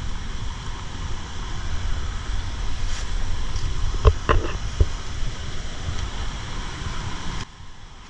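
Wind buffeting the microphone, a steady low rumble with a few knocks about four seconds in; it drops off sharply near the end.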